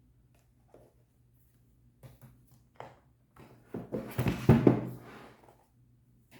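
Packaging being handled during an unboxing: a few light knocks and scrapes, then a louder rustling, scraping handling noise about four seconds in.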